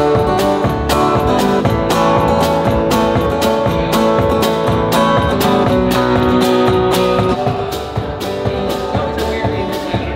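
Acoustic guitar music with a steady strummed beat; it drops in level about eight seconds in.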